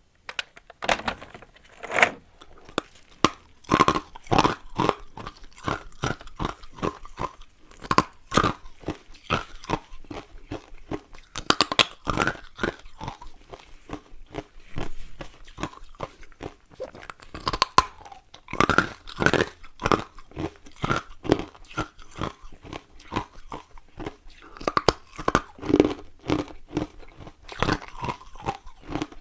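Ice cubes being bitten and chewed close to the microphone: a run of irregular crunches and crackles, with a few louder bites every few seconds.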